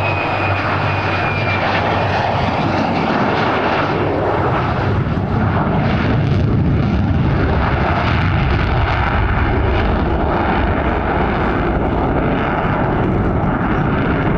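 Lockheed Martin F-35C's single Pratt & Whitney F135 turbofan running loud as the jet flies low with gear down and climbs away in afterburner. A high whine fades in the first second or two, and a deep, crackling rumble grows from about five seconds in.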